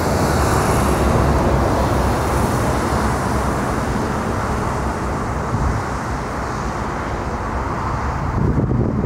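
Jet engines of a Boeing 777 freighter (twin GE90 turbofans) running at taxi power: a steady rushing jet noise over a low rumble.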